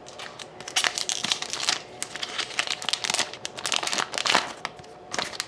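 Crinkling and crackling of a shiny foil trading-card pack wrapper as the slit-open pack is handled and the cards are pulled out, in irregular bursts.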